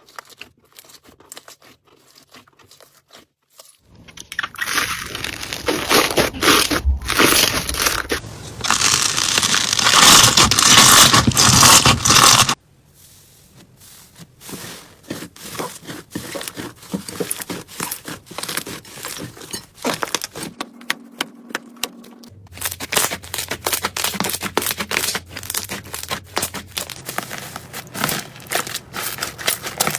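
Slime being squeezed and pressed by hand, crackling, crunching and clicking. A dense, loud crackle fills several seconds early on, then gives way to a quieter, steady run of sharp clicks and pops.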